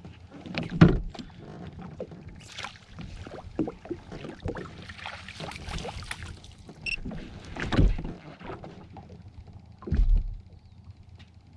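Water splashing and slapping beside a jet ski, with knocks and handling sounds on its hull, while a trout is played and netted. Three heavy thumps stand out: about a second in, past the middle, and near the end.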